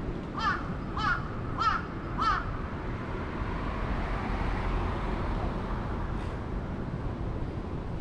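A crow cawing four times in quick succession, then once more faintly a few seconds later, over a steady low hum of city traffic.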